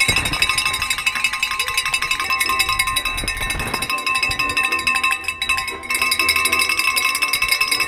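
Spectators' cowbells clanging rapidly and without a break, a dense metallic ringing that eases for a moment a little after five seconds in.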